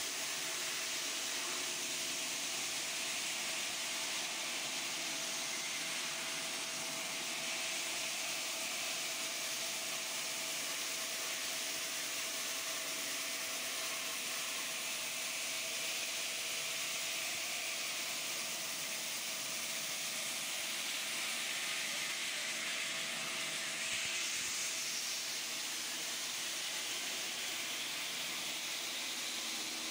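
Large water-cooled circular diamond saw cutting a stone block: a steady hissing grind with a steady whining tone that stops about three-quarters of the way through.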